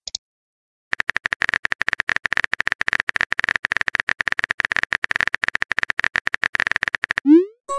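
Rapid, steady clicking of a phone keyboard typing sound effect, starting about a second in, then a short rising chirp near the end as the typed text message is sent.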